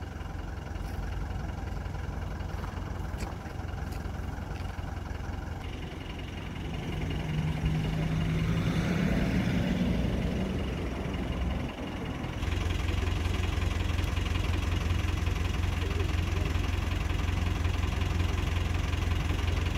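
A vehicle engine idling close by, a steady low rumble, with a louder swell in the middle and a step up in level about twelve seconds in.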